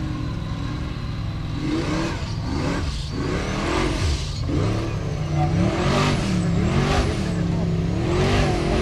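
Formula Offroad buggy's engine revving hard in repeated surges, its pitch rising and falling as the paddle tyres dig up a steep dirt climb.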